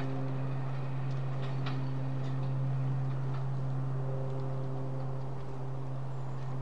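British Rail Class 43 HST power car's diesel engine running with a steady low drone as the train approaches slowly, with scattered light clicks over it.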